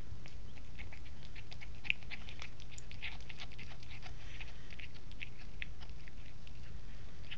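A cat chewing a slice of ham, making many small, irregular clicks of chewing, over a steady low hum.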